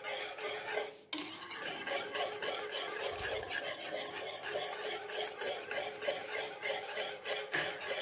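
Wire whisk beating a runny egg-and-sugar mixture in a steel pan, with quick, even strokes scraping and clinking against the metal and a brief break about a second in. The mixture is being whisked nonstop over a low flame so the eggs cook into halwa instead of setting into scrambled egg.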